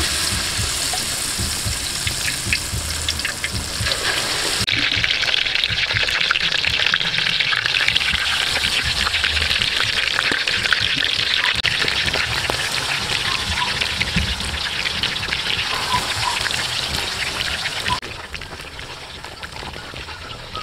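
Hot oil sizzling and crackling in a steel wok as battered pieces of rat meat deep-fry. The sizzle gets louder about four to five seconds in and drops back near the end.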